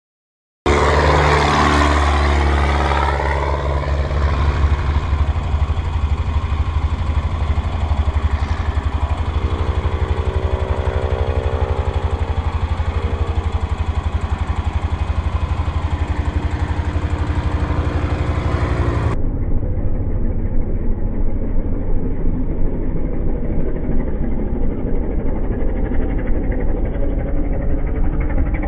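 Small single-engine propeller plane flying low past, its engine and propeller running steadily. About two-thirds of the way in, the sound changes abruptly to a duller, more muffled recording of the same kind of engine.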